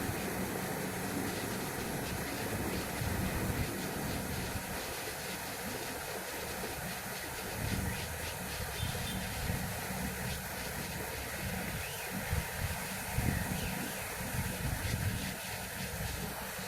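Steady background hiss with an uneven low rumble and a few faint ticks.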